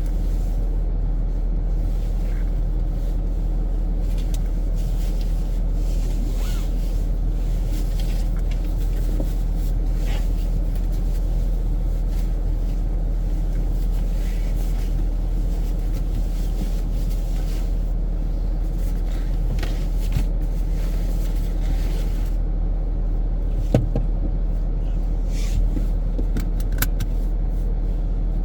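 Infiniti Q50 Red Sport 400 being driven: a steady low rumble of engine and road noise at an even level, with occasional faint ticks.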